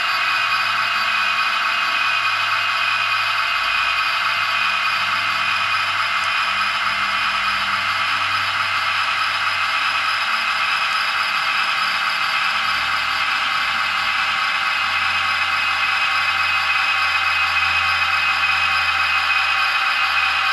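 Sound-decoder diesel engine sound of a British Rail Class 67, its GM-EMD 710 V12 two-stroke, running steadily through the small speaker of an OO gauge model locomotive on the move. The sound is thin, with little low end.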